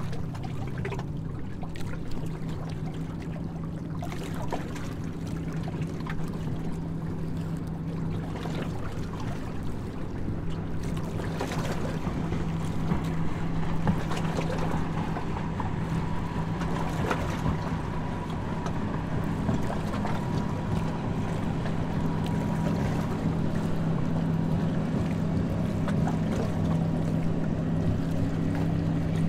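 Harbour tour boat's engine running with a steady low hum under way, over an even rushing noise.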